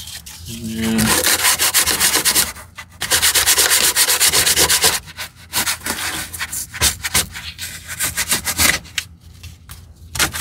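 Hardened expanding foam on a truck dashboard being shaved flat by hand with a cutting tool: two long scraping strokes, then a run of shorter, quicker strokes.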